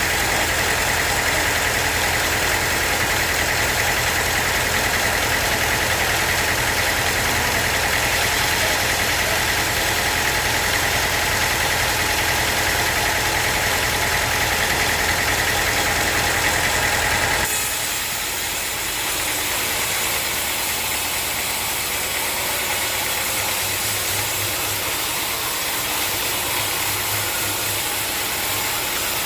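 Sawmill machinery running steadily: an engine hum with a constant high whine. About seventeen seconds in, the sound changes abruptly: the whine and low hum drop away, leaving a hissier whir.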